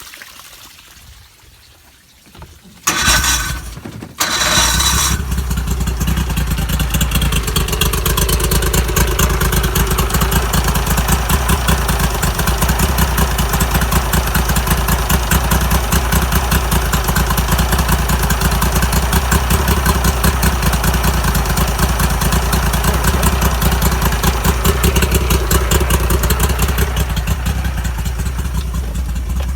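Mercury 50 hp outboard engine starting about three seconds in: a first burst that drops out for a moment, then catches and idles steadily with a rapid, even firing pulse, while its idle speed is being adjusted.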